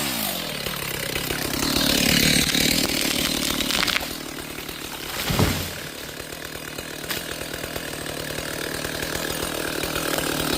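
Chainsaw coming off full throttle and dropping to a steady idle, with one brief rev about five seconds in.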